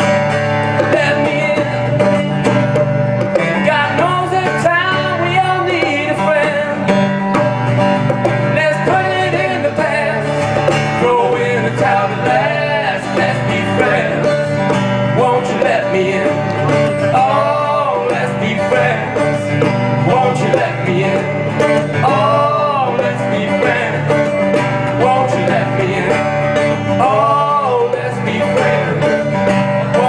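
Live acoustic guitar and hand-played drums in a country-style instrumental break between sung verses, with a melody line that bends up and down in pitch over the strummed chords.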